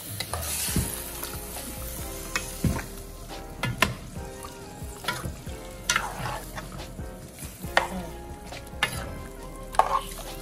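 A metal spoon scraping and knocking against a metal pot as pieces of curry chicken are turned, with a few sharp knocks spaced irregularly through the stirring. The chicken sizzles as it fries in the curry.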